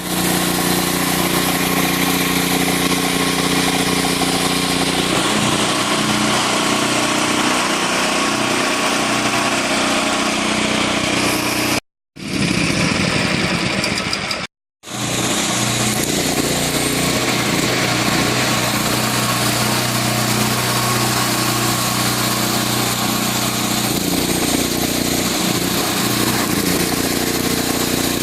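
Engine-driven CO2 welding generator running steadily, its engine note shifting in pitch a few times, with a strong hiss above it. The sound stops dead twice, briefly, near the middle.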